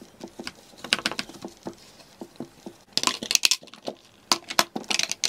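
A tissue rubbing and rustling inside a plastic drawer organiser, then small plastic and metal makeup products clicking and clattering as they are set down in the plastic tray, in quick clusters of clicks from about three seconds in and again near the end.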